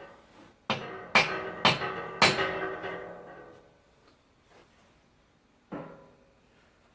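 Metal casting gear clanking: four sharp metallic strikes about half a second apart, each ringing out, then a fainter one near the end.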